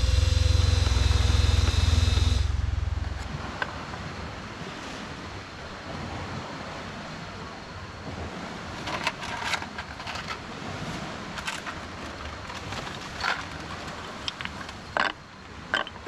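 A steady motor drone with a low rumble and a few steady tones stops about two and a half seconds in. A quieter background follows, with scattered sharp clicks and knocks in the second half.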